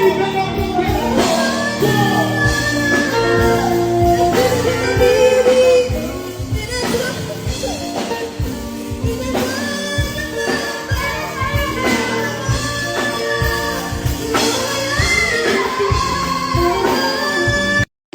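A band and singer performing a song at a sound check, a sung melody over a drum beat. The sound drops out for a moment just before the end.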